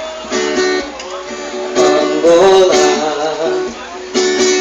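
Acoustic guitar strumming the accompaniment of a song between sung verses, in a steady rhythm.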